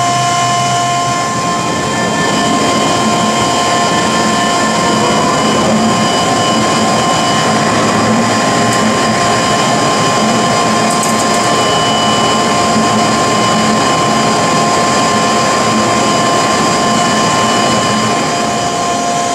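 A 124-inch Bullard Dyn-Au-Tape CNC vertical turret lathe running under power with its table turning: a steady machine hum with several steady whining tones.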